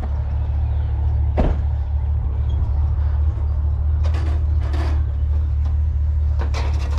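Truck's engine and road noise heard from inside the cab, a steady low drone, with a few brief knocks or rattles.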